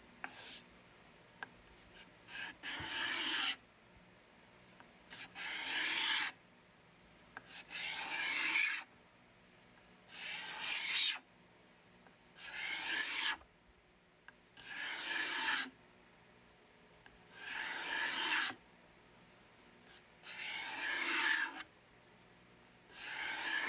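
Steel card scraper being sharpened with slow, even, rasping strokes, about nine of them, each lasting a second or so and ending abruptly.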